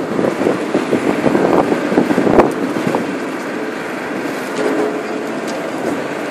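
City street noise with passing road traffic, and a sharp click about two and a half seconds in.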